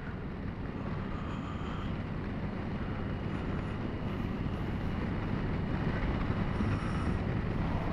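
Honda Gold Wing Tour DCT's flat-six engine running steadily at road speed, mixed with wind and road noise, slowly getting a little louder.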